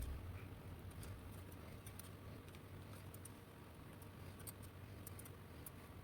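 Faint, scattered light clicks and ticks of small parts being handled at a workbench, over a low steady hum.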